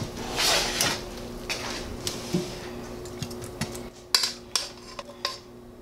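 Metal kitchen tongs clicking and clinking against a nonstick frying pan and a ceramic baking dish as browned chicken breasts are lifted out and set down, a string of separate sharp clinks. A short hiss comes about half a second in.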